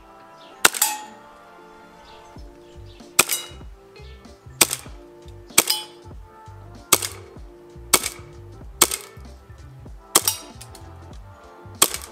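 Airsoft Colt 1911 gas pistol firing single shots, about nine sharp cracks spaced one to one and a half seconds apart as it is fired at targets.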